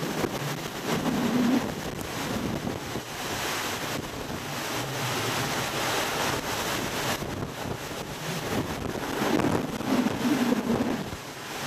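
Hurricane eyewall winds rushing and buffeting the microphone in gusts. The gusts are strongest about a second in and again near the end.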